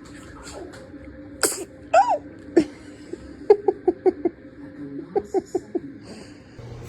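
A newborn baby's small noises: a couple of sharp sneeze-like bursts, a brief squeak that rises and falls about two seconds in, then two quick runs of short huffs.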